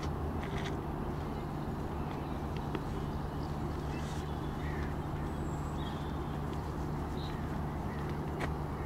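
Outdoor pond-side ambience: a steady low hum with a few short, high bird chirps scattered through it and a couple of faint clicks, one near the end.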